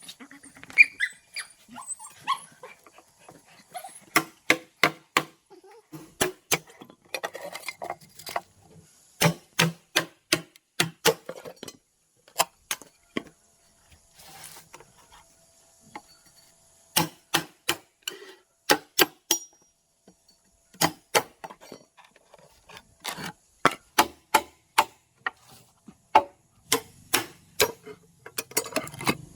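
Repeated sharp chopping strikes in quick runs of about four or five a second, broken by short pauses, with a few short animal yips near the start.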